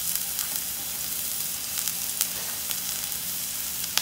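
Minced garlic sizzling in hot oil in a stainless steel pan as it starts to brown: a steady hiss with scattered small pops and a faint low hum underneath.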